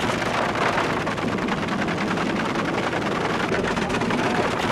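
Wind buffeting the microphone of a camera held out of a moving car's window, mixed with road noise: a steady, crackling rush.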